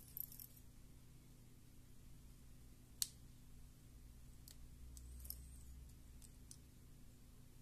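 Near silence with a low steady hum, broken by a few faint clicks as the small parts of a Bluetooth headset are handled, one sharper click about three seconds in.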